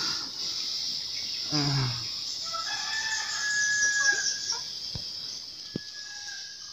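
A rooster crowing once, a long drawn-out call about midway, over a steady high-pitched buzz.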